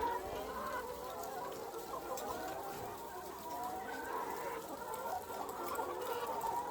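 A large flock of chickens in a poultry house calling all at once, a steady dense chorus of overlapping clucks and cheeps.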